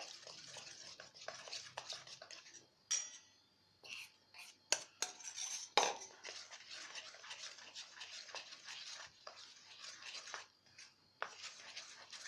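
Metal spoon stirring and scraping cake batter in a stainless steel bowl, with several sharp clinks of spoon on steel, the loudest about six seconds in.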